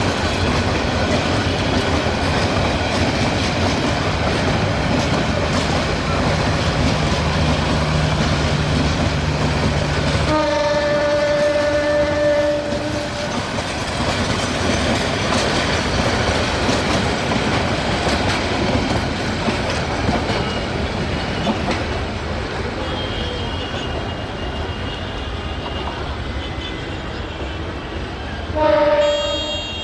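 A diesel-hauled passenger train passing: the EMD GT18LA-2 diesel locomotive's engine drones steadily for about the first ten seconds. The horn then sounds for about three seconds, followed by the steady rumble and clickety-clack of the old vacuum-braked coaches rolling by. A second short, loud horn blast comes near the end.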